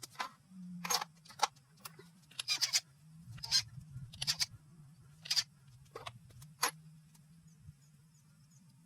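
Sharp metal clinks and clanks of hand tools and engine parts being handled during an engine teardown: about a dozen irregular knocks, stopping about seven seconds in. A faint steady hum runs underneath.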